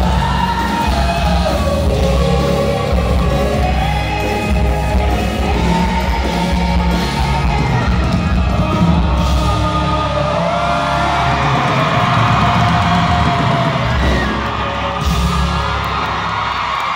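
Live pop concert heard from within the crowd: a band through a large PA, with sung vocals over heavy bass and shouts from the audience. The bass drops away near the end.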